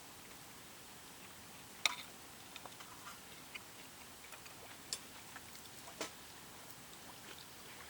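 Sparse, irregular light clicks and taps over a faint steady hiss, the sharpest about two seconds in and two more near five and six seconds in.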